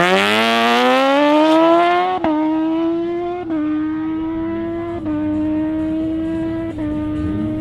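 Tuned Suzuki GSX-R 1000 inline-four sport bike launching hard: the engine note climbs steeply through first gear for about two seconds, then drops with four quick upshifts, each followed by a further climb, as the bike pulls away and grows fainter.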